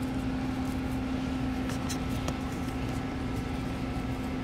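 Steady low machine hum with one constant pitch, and a couple of faint light clicks partway through.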